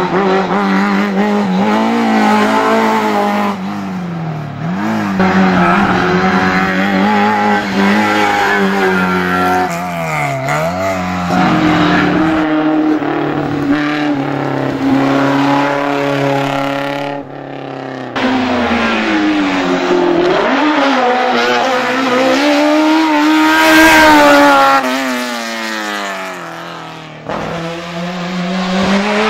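Classic racing cars, a Renault 5 Alpine among them, accelerating hard one after another through a bend. Their engines rev up and drop back through gear changes. The sound breaks off abruptly twice as one car gives way to the next.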